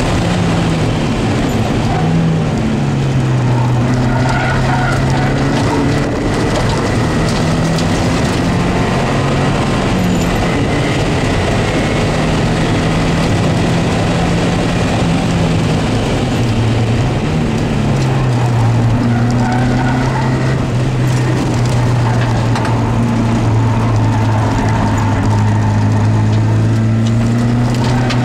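Porsche 924S's 2.5-litre four-cylinder engine heard from inside the cabin during an autocross run, its revs repeatedly climbing and dropping.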